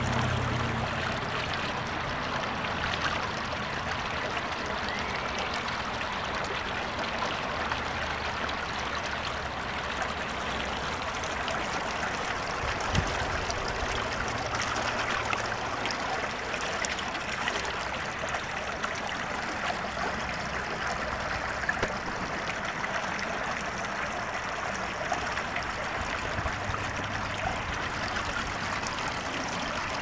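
Well water running steadily down a shallow, rocky creek bed over submerged plants.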